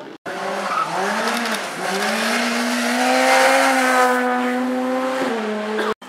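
Rally car engine under hard acceleration. The revs dip and recover about a second and a half in, then climb steadily and hold high before falling sharply about five seconds in. The sound starts and stops abruptly.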